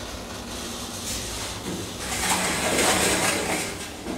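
DEVE hydraulic elevator car travelling in its shaft with a steady hum, then a louder rushing hiss about two seconds in, lasting over a second, as the car arrives and levels at the landing, and a short knock near the end.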